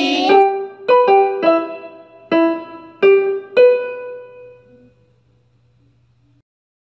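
Piano-style keyboard playing the closing notes of a children's theme tune: six single notes in an uneven run, the last one left ringing and fading away.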